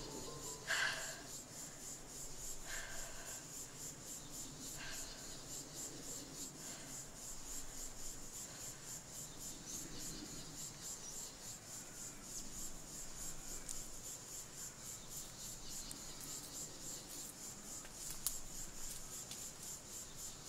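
Outdoor ambience dominated by a steady high-pitched insect chirring that pulses about five times a second, with faint rustling. In the first few seconds the last notes of the score fade out.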